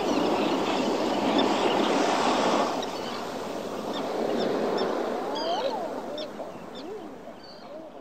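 Sea-cliff and rocky-shore ambience: surf washing against rocks, loudest in the first few seconds, with scattered bird calls and chirps from about halfway in. The whole sound fades down toward the end.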